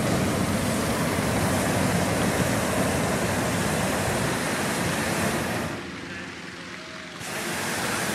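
Hot air balloon propane burner firing into the envelope during ground inflation, a steady roar. It drops away for about a second and a half near the end, then comes back.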